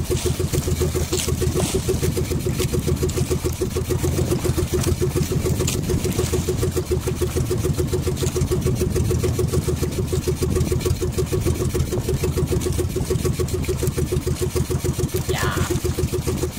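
Small outrigger boat's engine running steadily at low speed, a fast, even pulsing beat.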